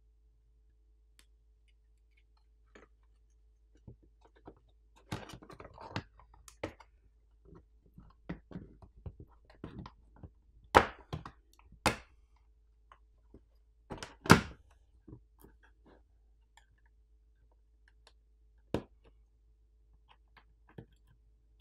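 Parts of a mini PC being fitted back together by hand: scattered small clicks, taps and light knocks of plastic and metal pieces, with quiet gaps between. The loudest are a few sharp knocks around the middle.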